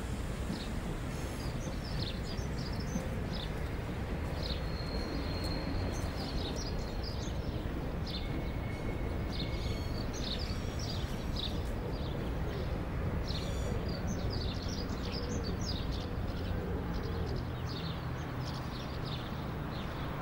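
Small birds chirping and calling again and again over a steady low background rumble, with a couple of longer thin whistled notes among the chirps.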